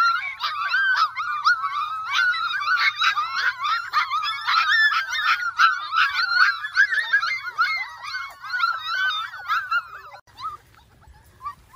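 A litter of penned puppies whining and yipping all at once, many high-pitched cries overlapping in a continuous chorus. It dies away to a few faint whimpers about ten seconds in.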